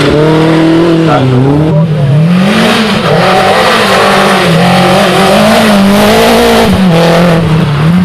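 Renault Clio rally car engines revving hard through tight bends, one car after another, with the pitch rising and falling over and over as the drivers lift off and get back on the throttle.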